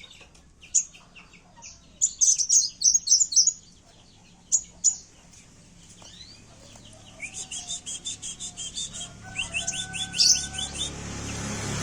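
Kowul songbird singing in bursts of rapid, high chirps, then a fast high trill with a lower whistled note under it from about seven seconds in. This is a lure (pancingan) recording of an agitated, fighting-mode kowul.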